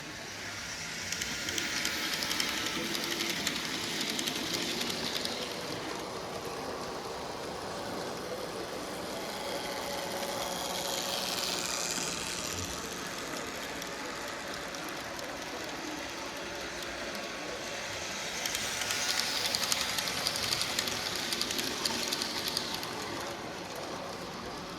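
N gauge model train running around the layout, its small motor whirring and its wheels clicking on the track. The sound grows louder and fades three times as the train passes close by and moves away.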